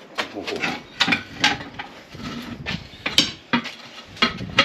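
Metal tyre-changing tool clanking and scraping against a steel wheel rim as a skid steer tyre's bead is levered on: a run of irregular sharp knocks and clinks, the loudest about three seconds in.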